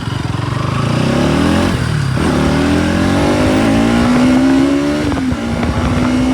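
Bajaj Pulsar NS200 motorcycle engine accelerating hard: its pitch climbs, breaks briefly at a gear change about two seconds in, climbs again, then eases off and holds steady near the end.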